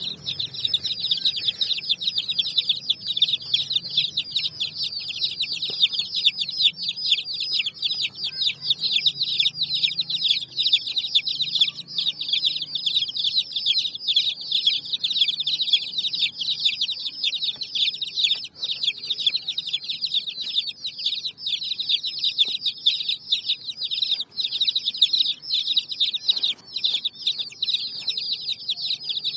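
A brood of baby chicks peeping continuously, many short high-pitched chirps overlapping, each one falling in pitch.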